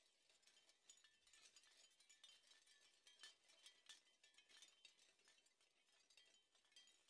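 Near silence, with only faint high-pitched clicking and tinkling.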